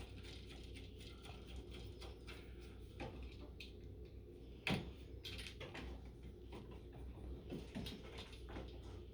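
Faint clicks and taps of a screwdriver and wires being worked onto the terminal screws of a wall light switch, with one sharper knock about halfway through, over a steady low hum.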